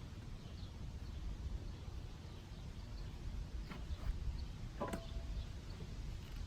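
Low, steady outdoor rumble with a faint click a little under four seconds in and a sharper click about five seconds in.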